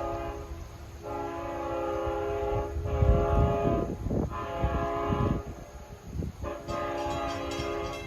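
Long Island Rail Road locomotive air horn blasting for grade crossings: one long blast of about four seconds, then another starting near the end, with a brief trailing note at the very start.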